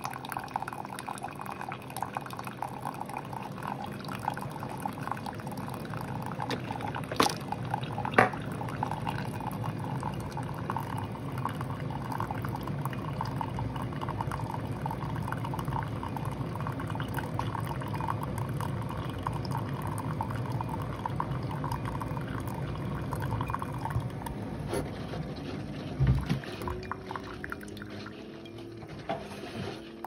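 Keurig K Duo Plus single-serve brewer pouring a thin stream of coffee into a tall ceramic mug: a steady trickle of liquid over the machine running, with two sharp clicks about seven and eight seconds in. The flow eases off about twenty-four seconds in, as the brew cycle ends.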